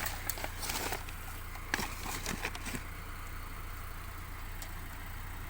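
A steady low rumble, with a few light clicks and knocks in the first three seconds.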